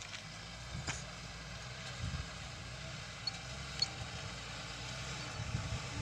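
Lorry's diesel engine running as the truck drives slowly over a dirt track, a steady low rumble.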